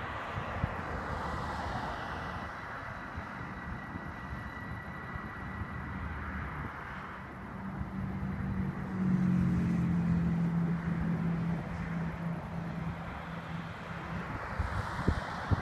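Cars driving along a road, with a louder low engine hum from a car passing about eight seconds in, which fades away after a few seconds. Wind on the microphone gives a few short knocks.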